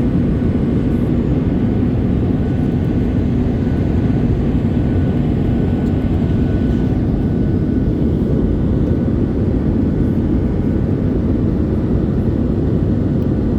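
Airliner cabin noise in flight: a steady, even drone of engines and airflow, strongest low down, with a faint thin whine above it.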